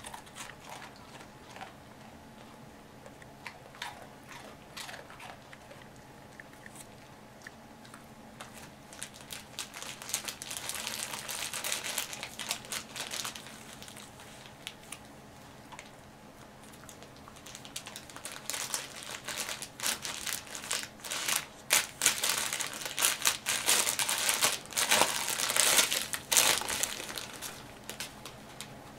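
German shepherd puppy chewing and shaking a plastic snack bag, the bag crinkling and crackling. The sound is sparse at first, comes in a burst about a third of the way in, and turns dense and loudest in the second half.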